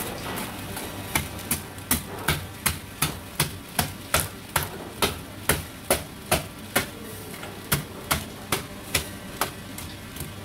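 Large kitchen knife chopping down through a stingray's flesh and cartilage onto a thick wooden chopping block: a run of about twenty sharp knocks at two to three a second, starting about a second in, with a short pause near the end.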